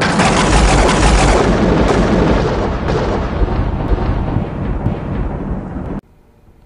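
Thunder sound effect: a loud clap and deep rolling rumble with scattered crackles, slowly fading, then cut off suddenly about six seconds in.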